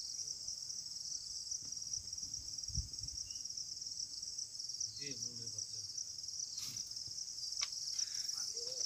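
A steady, high-pitched insect chorus that does not let up, with a couple of faint clicks near the end.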